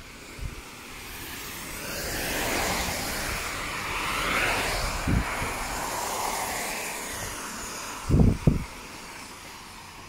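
A passing vehicle: a rushing noise that swells for a few seconds, peaks about midway and fades away. Near the end come two short low thumps.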